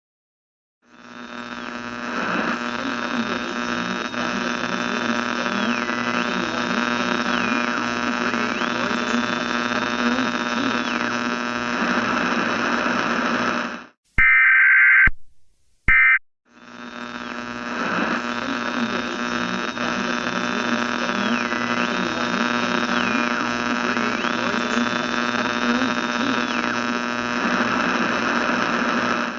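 Harsh electronic static-like noise over a steady hum, with high whistling tones that drop and rise again, running about thirteen seconds. A brief, loud electronic tone burst and a short break follow, then the same noise plays again.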